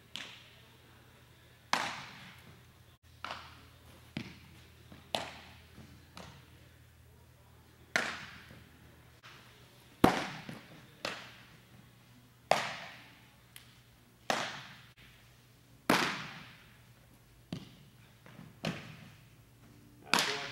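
Sharp smacks of a baseball popping into leather gloves during infield throwing practice, about fourteen, irregularly spaced one every second or two, each echoing in a large indoor hall.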